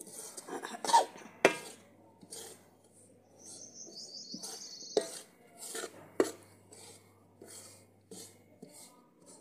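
Steel spoon scraping and clinking against a metal kadai as a dry, crumbly ladoo mixture of roasted-gram flour and sugar-candy powder is stirred, with a few sharp knocks of the spoon against the pan.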